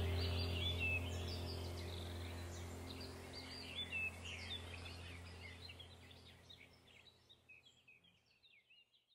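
Small birds chirping and calling over a steady low drone, the whole slowly fading out to silence near the end.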